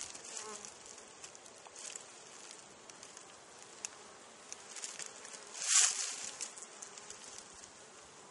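Honey bees buzzing close around the microphone as they fly about near their hive, defensive and going after people; the buzz wavers in pitch as bees pass. A short, louder rustling burst about six seconds in.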